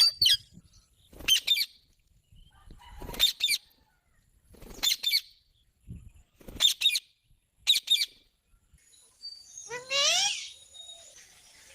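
Green parrot calling: a series of short, sharp, high calls about every second and a half, then a longer call near the end that rises in pitch.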